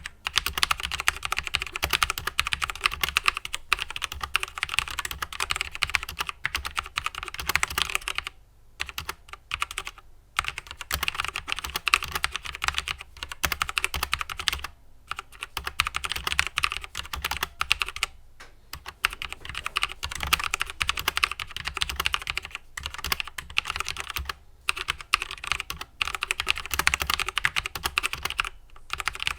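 Typing on a SteelSeries Apex M400 mechanical keyboard with SteelSeries QX1 switches and ABS keycaps: a fast, continuous clatter of keystrokes, broken by a few short pauses.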